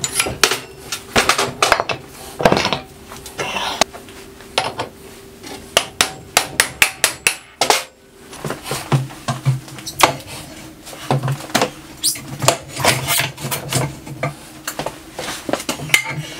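Irregular metallic knocks, taps and clinks as steel parts of a tire power hammer (a shaft, pillow-block bearings, a wheel hub and a wrench) are handled and fitted together on a steel workbench.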